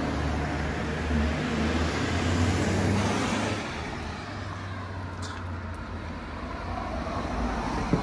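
Road traffic: a motor vehicle going past, its engine hum and tyre noise swelling about two to three seconds in and then fading.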